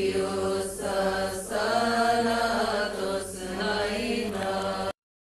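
Chanted hymn singing: a slow melodic line of held, steady notes, broken by short pauses. It cuts off abruptly near the end, leaving about a second of silence.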